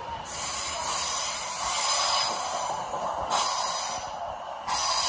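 Electric train at a station platform hissing compressed air in several bursts that start and stop abruptly, over a low rumble.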